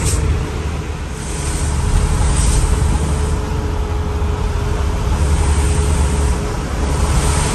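Truck running on the road: a steady low engine rumble with road noise, with brief swells of rushing hiss near the start, about two and a half seconds in, and near the end.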